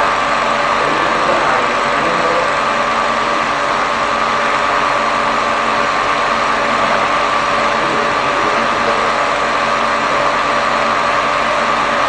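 A steady mechanical drone, like a small motor or engine running, with a few constant tones in it and no change in level.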